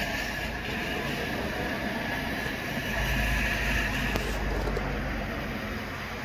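Steady rain and wind, a continuous rushing hiss that swells louder for a second or so about three seconds in.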